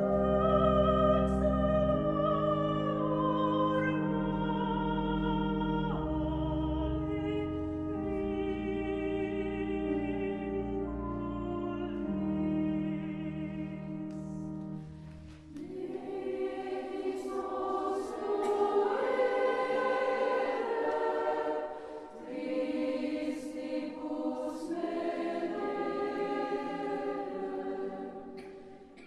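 Choir singing slow, sustained chords with vibrato. About halfway the music dips briefly, then higher voices carry on.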